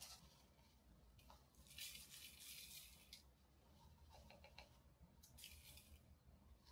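Faint, sandy hiss of dry Korean red chili flakes (gochugaru) poured from a glass jar into a glass bowl of chives: one pour of about a second and a half, then a shorter one near the end.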